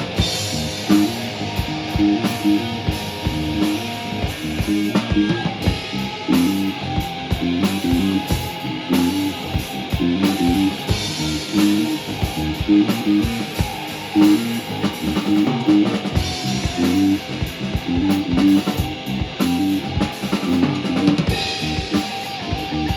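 Live rock band playing an instrumental stretch of a song with no vocals: guitar chords over a drum kit keeping a steady beat.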